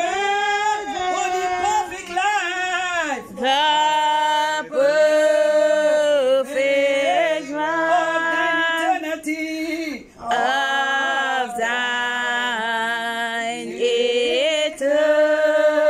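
Men and women singing a worship song together, unaccompanied, in long held notes with short breaks between lines.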